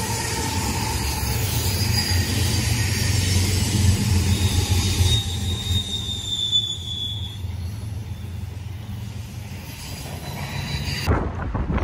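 BNSF freight train passing close by: several diesel locomotives running with a steady low rumble and wheel-on-rail noise, a high wheel squeal for a couple of seconds around the middle, then loaded intermodal well cars rolling past. Just before the end it cuts abruptly to wind buffeting the microphone.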